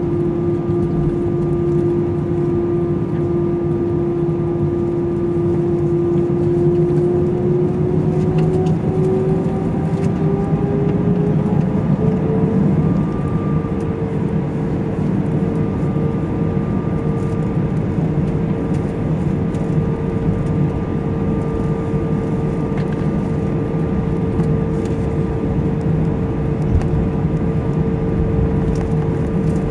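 Airbus A320 jet engines heard from inside the cabin while the airliner taxis: a steady low rumble with an engine whine that rises in pitch about eight to twelve seconds in as thrust is added, then holds at the higher pitch.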